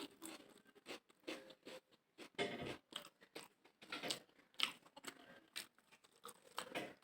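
A person chewing and eating mutton biryani close to the microphone, with irregular mouth clicks and crunches.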